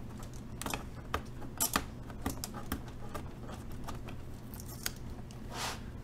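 Fingernail picking at and peeling a 'do not remove' warranty sticker off the plastic underside of a Cooler Master MasterKeys S keyboard: scattered small scratches and clicks, with a softer scrape near the end.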